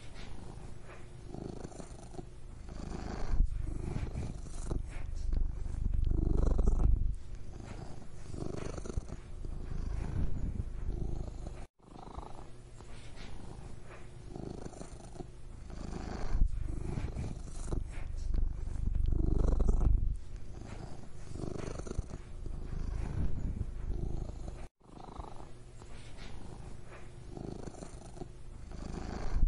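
Domestic cat purring, a continuous low rumble that swells and fades with each breath. The sound cuts out for an instant twice.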